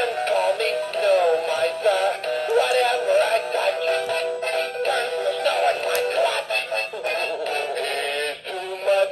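Animated spinning snowman toy playing its built-in song through its small speaker: a synthesized singing voice over a simple electronic tune, thin and with little bass.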